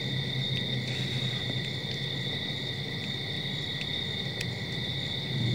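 Night insects, crickets or katydids, singing steadily in a high, even drone, over a steady low hum. A few faint clicks stand out.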